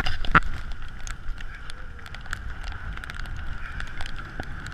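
Skis sliding over packed snow on a downhill run, with scattered scraping clicks from the edges and a low wind rumble on the camera microphone.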